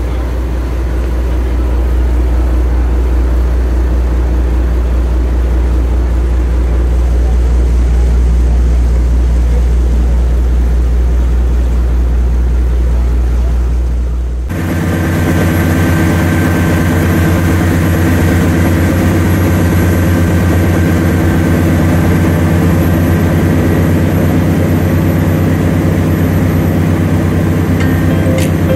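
Fishing boat's engine running steadily with a deep, low drone; about halfway through the sound switches abruptly to a higher, brighter engine drone.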